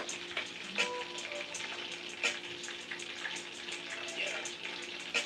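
Chicken frying in oil in a skillet, a steady sizzle with crackling, and a few sharp clicks.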